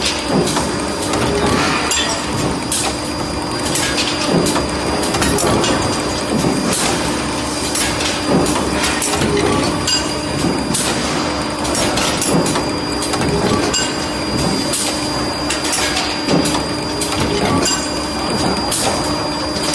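Workshop machinery noise: a steady machine hum under frequent irregular metal knocks and clatter.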